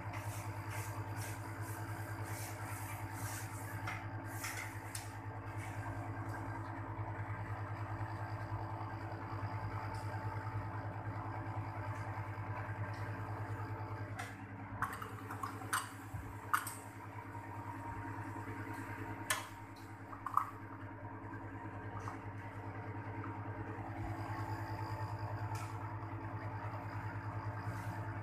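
Panasonic split air conditioner's outdoor unit running with a steady low hum while refrigerant is charged through its service valve. A few light clicks come midway.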